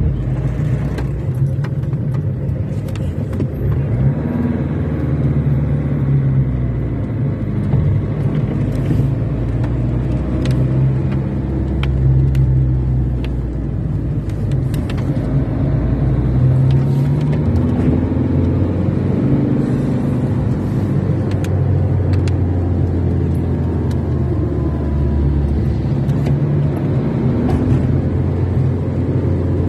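Car driving on a wet road, heard from inside the cabin: a steady low rumble of engine and tyres, with the engine note rising and falling as the car changes speed, and a few faint clicks.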